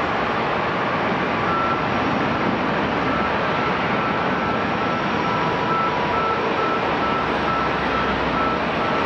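Steady roar of aircraft engine noise at an airport, with a ground vehicle's reversing alarm beeping repeatedly from about a second and a half in.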